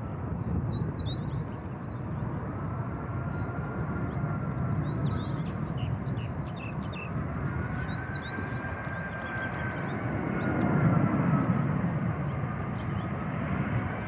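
Four-engined Qantas Airbus A380 (Rolls-Royce Trent 900 engines) on approach to land: a steady jet rumble with a thin whine that slowly rises and falls in pitch, growing louder about two-thirds of the way through as the airliner comes closer. Small birds chirp briefly now and then.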